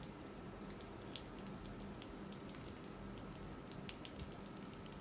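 Pork fat faintly sizzling and spitting on a moo kata grill pan: scattered irregular ticks and pops over a steady low hum.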